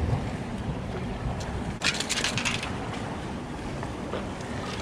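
Steady rumble of surf and wind on the microphone along a rocky shore, with a brief crackling clatter about two seconds in.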